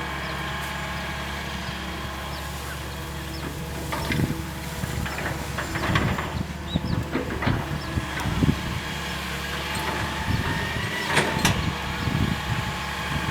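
Hitachi EX220-1 long-reach excavator's diesel engine running steadily; from about four seconds in, irregular knocks and clatters join it as the machine works.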